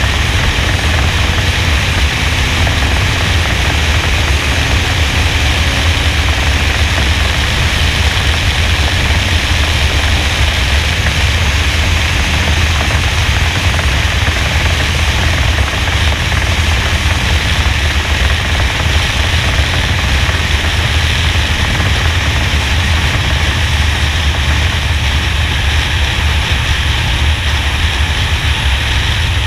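NASCAR stock car's V8 engine running at speed, heard through a GoPro on the car's roof: a steady, loud drone with rushing noise over it, in which the lifts off and back onto the throttle are hard to make out.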